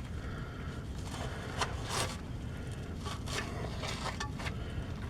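Hand tools scraping and clicking against metal while the nut on a transmission shifter lever arm is worked on, a handful of short irregular clicks and scrapes over a low rumble.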